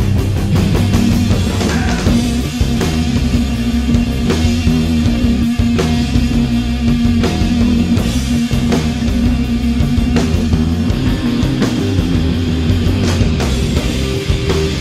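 Rock music with electric guitar and a drum kit playing steadily.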